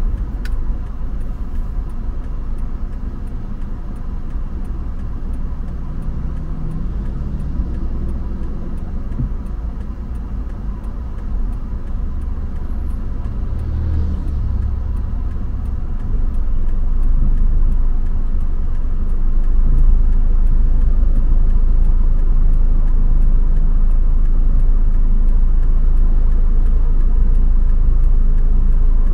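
A car driving on city roads, with a steady low rumble of road and engine noise that grows louder from about sixteen to twenty seconds in.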